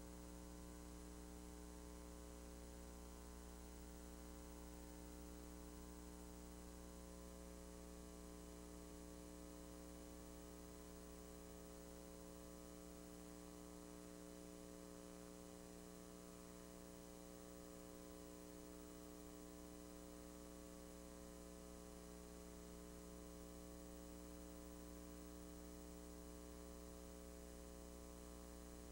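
Near silence: only a steady electrical mains hum with a faint hiss, with no sound from the parade itself.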